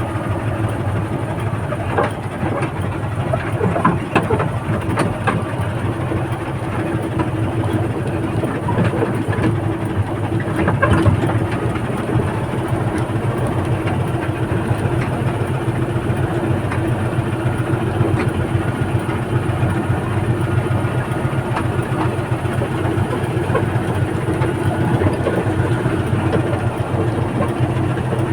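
Backhoe's diesel engine running steadily at a low, even hum, with a few sharp clanks in the first dozen seconds.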